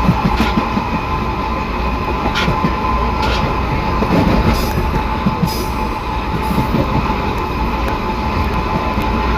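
Metro car under way on its traction drive: a steady whine from the traction motor and inverter with a low growl from the reduction gearbox, which the owner of the recording thinks is probably short of lubrication. Beneath it runs the rumble of the wheels on the rails, with a few clicks from the track.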